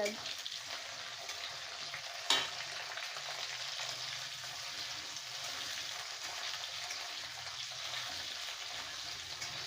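Onion and spices frying in hot oil in a kadai, a steady sizzle, with one sharp knock of the spatula on the pan about two seconds in.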